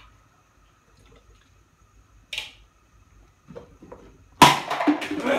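Thick sauce simmering in a pan: mostly quiet with a few small pops and plops, then a sudden loud spell of bubbling and spluttering about four seconds in.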